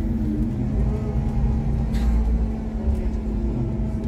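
Iveco Crossway LE bus's six-cylinder Cursor diesel engine running steadily with a low drone, with one short sharp knock about two seconds in.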